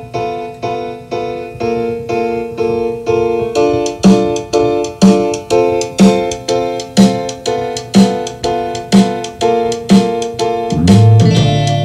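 Music played back from a TEAC A-3300 reel-to-reel tape recorder through loudspeakers: a keyboard tune of chords repeating about twice a second. From about four seconds in, a stronger beat falls about once a second, and near the end a low bass note comes in.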